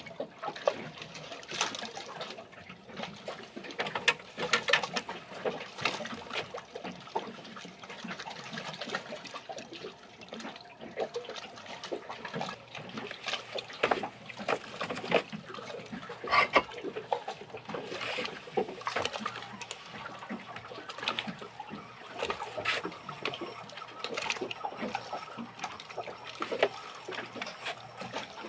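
Water lapping and slapping irregularly against the hull of a small fishing boat, in many short uneven splashes.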